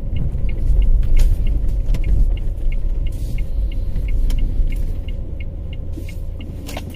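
A car's engine and road rumble heard inside the cabin as the car turns slowly, with the turn-signal indicator ticking steadily about three times a second.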